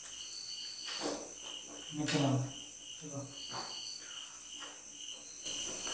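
Cricket chirping steadily, about two to three chirps a second. A brief low sound about two seconds in is the loudest thing.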